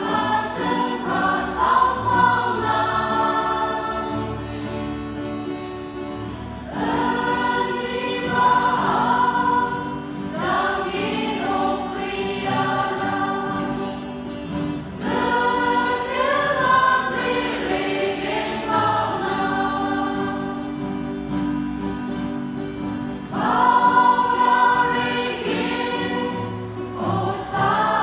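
Mixed choir, mostly women with a few men, singing a hymn together, in long phrases that swell up anew every few seconds.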